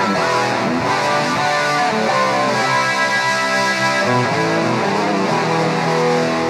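Epiphone Les Paul Special I electric guitar with humbucker pickups, played through a Boss eBand JS-10 processor straight to the amp with no miked cabinet. It plays sustained chords that change throughout.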